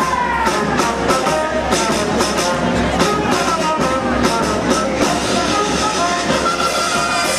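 Background music playing steadily, several instruments carrying a melody.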